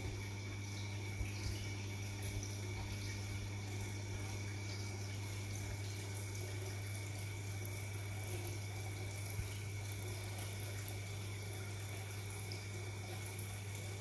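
Aquarium filter running: a steady trickle of water over a low, constant hum.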